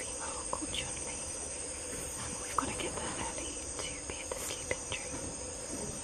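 Rainforest insect chorus: a steady high-pitched trilling of crickets and other insects over a lower steady drone, with a few faint clicks and rustles.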